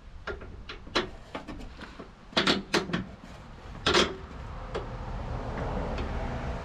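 Sharp metallic knocks and clinks as a King remote-reservoir shock is handled and seated onto the Jeep Gladiator's upper shock mount, the loudest a few seconds in. A steady rushing noise follows near the end.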